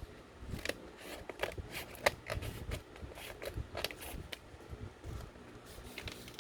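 Plastic blind-bag packaging crinkling and crackling in quick, irregular bursts as it is handled and opened.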